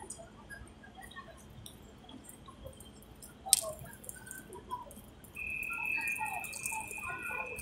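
Ambience of a rain-wet pedestrian shopping street, with faint scattered sounds. A sharp click comes about three and a half seconds in, and a steady high-pitched tone starts about two seconds later and holds.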